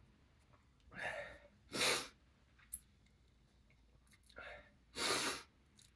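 A man's short breaths and sniffs through an irritated nose between sneezes brought on by chhinkni sneezing powder. There are three breathy sounds, about a second in, near two seconds and near five seconds, with a faint click between.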